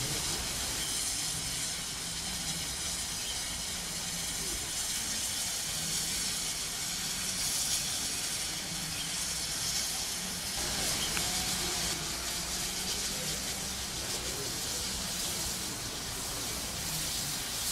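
Steam hissing steadily from a standing steam locomotive in steam, the American USATC S160 2-8-0, a continuous hiss that grows a little stronger about halfway through, over a low steady rumble.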